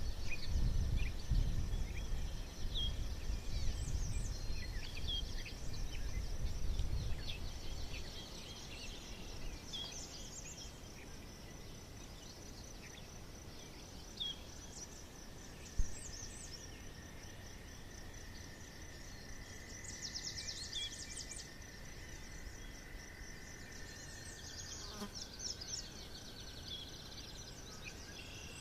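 Forest ambience: a steady high insect trill with scattered bird chirps and calls throughout. A low rumble sits under it for the first several seconds, then fades out.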